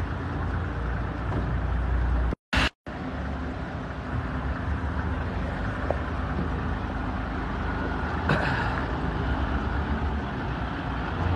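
Coaster-type minibus engine idling with a steady low rumble, broken by two brief silences about two and a half seconds in. A short hiss comes about eight seconds in.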